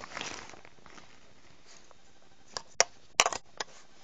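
A cat toy's fabric cover and plastic parts being handled and fitted together: a short rustle at the start, then a handful of sharp clicks, several in quick succession a little past the middle.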